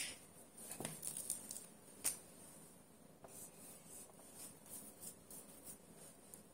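Marker pen writing on a whiteboard: a few faint taps and short scratches of the tip on the board.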